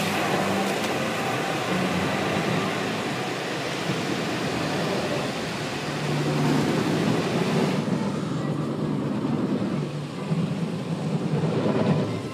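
Automatic car wash heard from inside the car's cabin: water spraying onto the windshield and body as a steady hiss. About eight seconds in, the hiss loses its highest part and turns duller.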